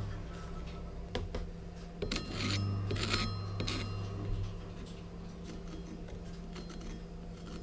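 Thin steel pointer tapping and scraping on a rusty steel hammer head: scattered small metallic clicks, with a cluster of scrapes and taps that ring faintly about two to four seconds in, over a steady low hum.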